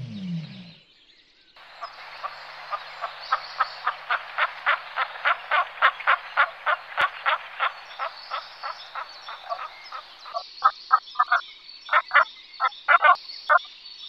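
A male black grouse displaying: a long run of quick, rasping notes, about four a second, then shorter irregular groups of louder notes near the end. In the first second, the end of a low ostrich call fades out.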